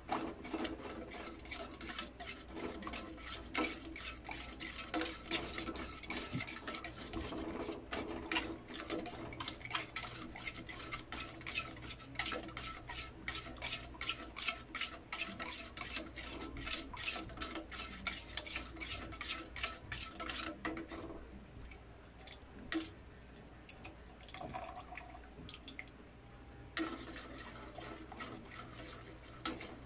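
A spatula stirring and scraping around a stainless steel pan of barbecue sauce being thickened with cornstarch, a quick run of scrapes and light taps against the pan. It eases off to a few odd knocks after about twenty seconds, then starts again near the end.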